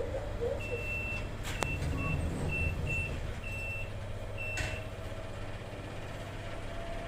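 An elevator's electronic beeper sounding seven short beeps at one high pitch, irregularly spaced and of varying length, over a steady low hum from the lift. Two sharp clicks come about a second and a half and about four and a half seconds in.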